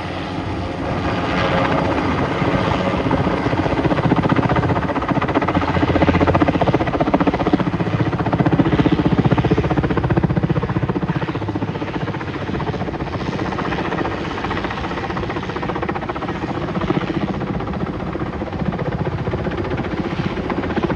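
Sikorsky H-34 helicopter hovering overhead with a load slung beneath it: the rapid, steady beat of its rotor blades over the engine's drone, growing a little louder in the first few seconds.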